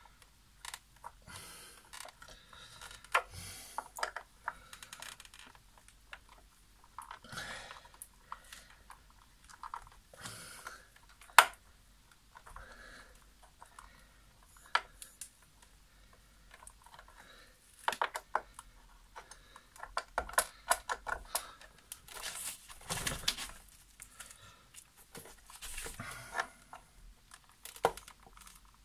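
Hand work on the plastic base of a Nespresso CitiZ coffee machine: irregular clicks, taps and scraping of plastic parts and a small metal tool, with one sharp click about eleven seconds in.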